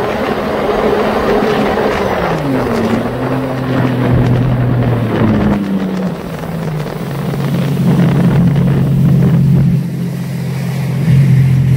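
Sea-Doo personal watercraft's engine running at speed with wind and water rushing, then throttled back about two seconds in so its steady note drops in pitch. After about six seconds the rush fades and the engine runs on at a lower, steady pitch.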